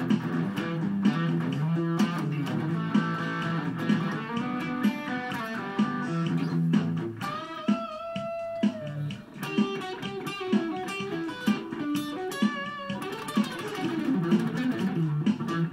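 Electric guitar music over a bass line and a steady beat; about halfway through, the lead guitar holds a few long, wavering notes.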